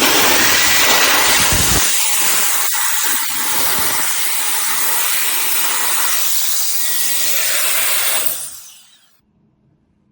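Cordless electric air duster running, a loud rushing blast of air over a high motor whine. About eight seconds in it is switched off and the sound dies away over about a second.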